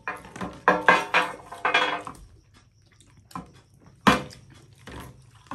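Partly filled plastic soda bottle being flipped and knocking down onto a glass tabletop: a clatter of knocks in the first two seconds, then one sharp loud knock about four seconds in and a few lighter taps.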